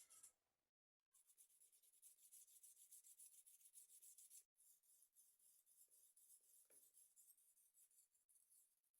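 Faint scraping of a kitchen knife blade stroked quickly and evenly across a sharpening stone, about four strokes a second. The scraping drops out briefly about a second in and again about halfway through.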